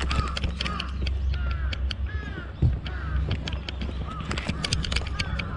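Crows cawing again and again, short rising-and-falling calls, over a steady low rumble and a scatter of sharp clicks.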